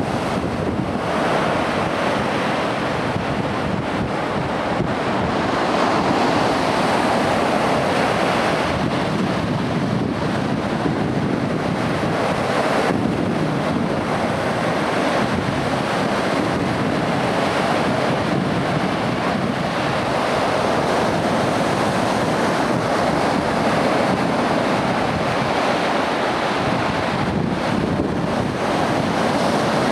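Lake Superior waves breaking and washing over a flat rock shoreline: a continuous surf noise that swells and eases every several seconds as each wave breaks, with wind buffeting the microphone.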